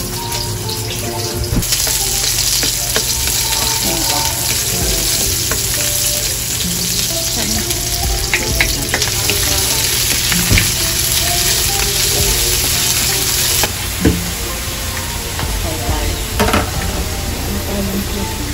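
Chopped onions sizzling in hot oil in a wok as a spatula stirs them, with scattered clicks and scrapes of the spatula against the pan. About three-quarters of the way through, the sizzle drops to a softer hiss as shredded cabbage and carrots are stirred in the wok.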